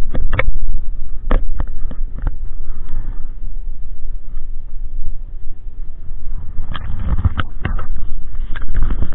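Fingers handling an action camera, with short knocks and rubbing on its case and a low rumble underneath. There are a few knocks in the first couple of seconds and a close run of them near the end, as the camera is moved.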